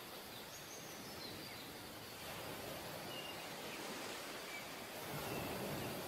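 Faint outdoor nature ambience: a steady soft hiss with a few short, high bird chirps scattered through it.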